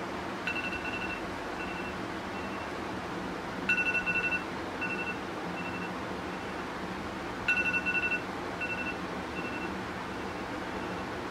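Electronic beeping in a repeating pattern, one longer beep followed by two short ones, three times at intervals of about three to four seconds, the first round fainter than the next two. A steady low hum runs underneath.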